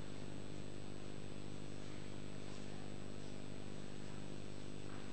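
Steady electrical mains hum and buzz with an even hiss and a faint constant high whine, unchanging throughout.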